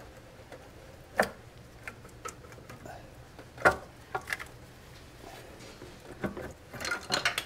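Metal clicks and knocks as the timing cover is worked off the front of a Ford 5.4-litre three-valve engine: a few sharp knocks spread apart, then a quick cluster of clinks near the end.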